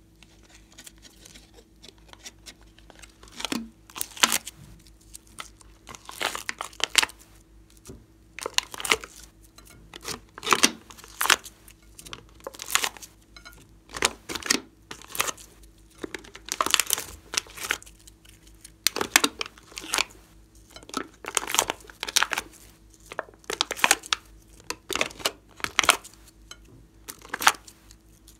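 Thin plastic slime cups crinkling as they are squeezed, with the sticky glossy slime peeling out of them, in a series of short crackling bursts about once a second.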